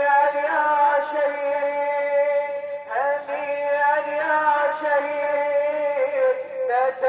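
A man's voice singing a slow chant in long held notes that waver and slide, with a new phrase starting about three seconds in and another near the end.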